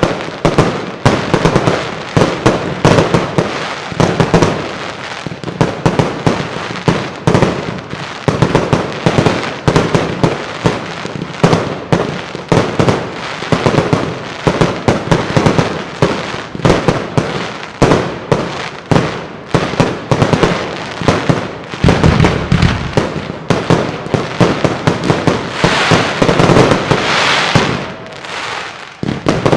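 Professional fireworks display: aerial shells bursting in a dense, continuous barrage, several bangs a second, with one heavier, deeper boom about two-thirds of the way through.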